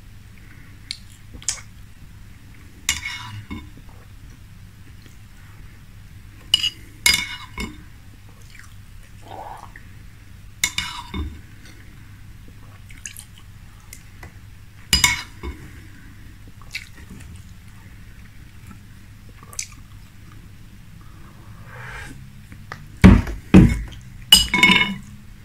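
Metal spoon clinking and scraping against a glass bowl every few seconds while spooning up leftover cereal milk. Near the end comes a quick run of louder clinks as the spoon is stirred around the bowl.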